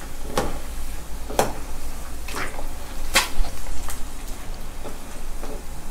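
Battered fish balls on skewers deep-frying in a pan of hot oil: a steady sizzle, with several sharp clicks, the loudest about three seconds in.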